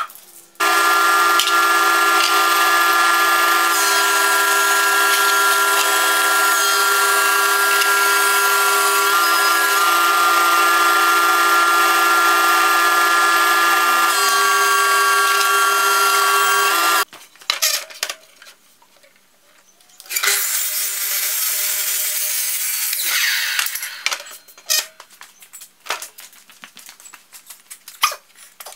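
Macma thickness planer running and planing a glued-up hardwood board: a loud, steady machine noise with several steady tones that stops sharply after about 17 seconds. It starts again briefly about three seconds later and winds down, followed by scattered light clicks and knocks.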